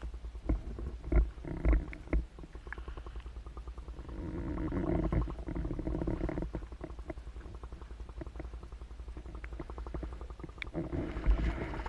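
Muffled underwater sound from an action camera held below the surface: low rumbling with scattered knocks, and a rapid run of regular ticking in the middle.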